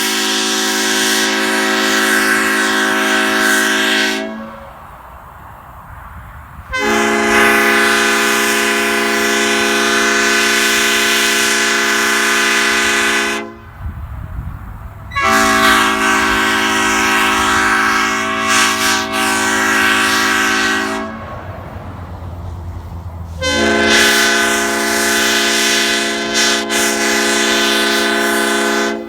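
Nathan Airchime P01235 five-chime air train horns, old-cast and new-cast, each sounding a steady chord. There are four long blasts of about four to seven seconds each, with short pauses between them; the first blast cuts off about four seconds in.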